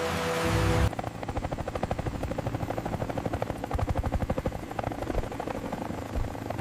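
A helicopter's rotor chopping in a rapid, even beat, which starts about a second in when the preceding music breaks off.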